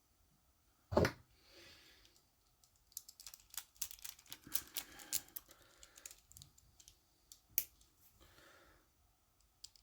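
Light clicks and ticks of small RC car diff parts, a screw and tools being handled while thread-locker goes on the gear's screw. There is one sharp click about a second in, a quick run of light ticks from about three to six seconds, and another sharp click near the end.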